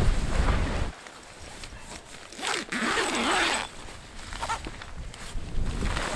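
A tent's zipper being pulled in long rasping strokes, the longest about two and a half seconds in, after a second of wind rumbling on the microphone.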